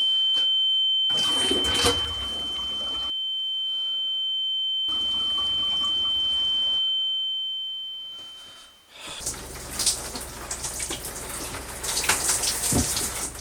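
A steady high-pitched electronic tone that fades away about nine seconds in, with stretches of hissing, rushing noise like running water, the longest and loudest in the last few seconds.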